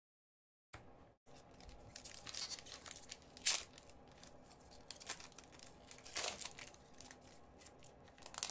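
A trading card pack's wrapper being torn open by hand: a crinkling rustle with several sharper rips, the loudest about three and a half seconds in.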